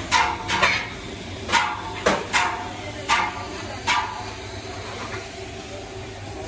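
Short, sharp strokes of a hand tool scraping the inner rubber of a large tractor tire around a crack, roughing the surface for a patch; about eight strokes in the first four seconds, then fainter. A steady low hum runs underneath.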